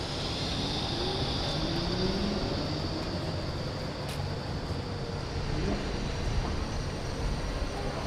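Flexity tram running, a steady rolling noise with a rising motor whine between about one and two and a half seconds in.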